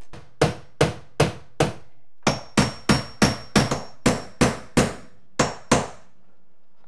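Hammer tapping finish nails in wooden door trim, setting their heads below the surface with another finish nail used as a nail set. A run of quick sharp strikes, about three a second, with a brief pause about two seconds in; the strikes stop about a second before the end.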